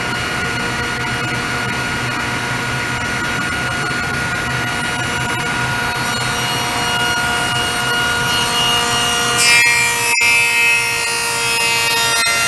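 Table saw running steadily at speed. From about six seconds in, a black walnut workpiece clamped upright in a tall jig is fed into the blade, and the cut adds a rising hiss that is loudest about nine to ten seconds in.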